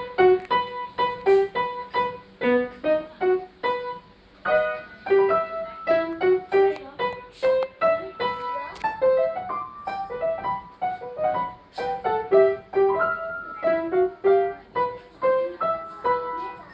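Upright piano being played: a melody of separate struck notes, about two to three a second, each note ringing briefly before the next.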